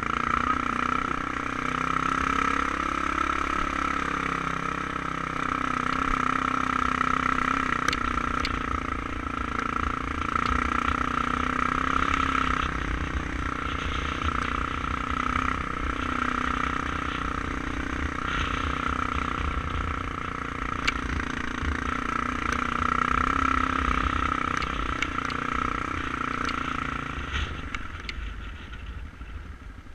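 Kawasaki KLR650's single-cylinder engine running steadily under load as the motorcycle climbs a rough gravel track, with low wind rumble on the microphone and a few sharp clicks from stones. The engine sound drops away about two seconds before the end.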